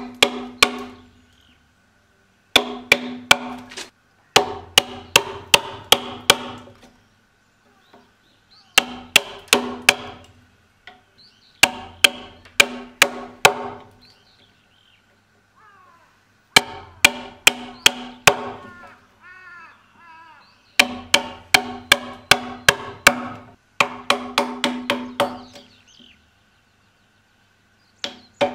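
Hammer blows on a Japanese chisel cutting into a Japanese pine beam: short bursts of three to six ringing strikes, a few a second, with brief pauses between the bursts.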